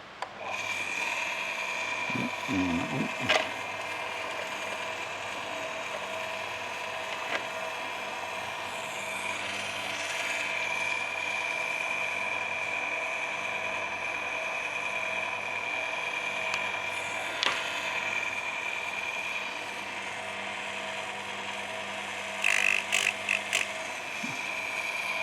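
Electric chainsaw chain sharpener's grinding motor switching on and running with a steady whine, with a few sharp clicks and a short run of rattling near the end.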